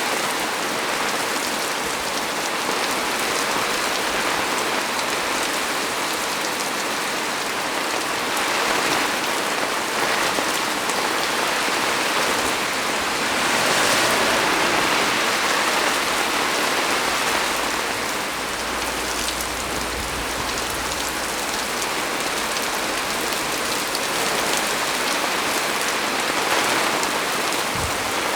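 Heavy rain pouring steadily onto the leaves of a small tree, a dense even hiss, with a faint low rumble in the middle.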